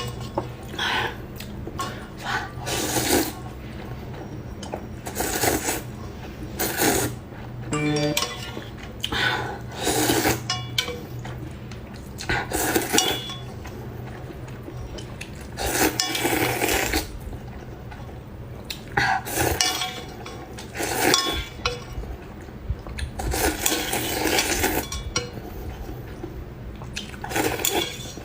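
Noodle soup being eaten close to the microphone: repeated slurps and mouth sounds every second or two, with utensils clinking against the bowl.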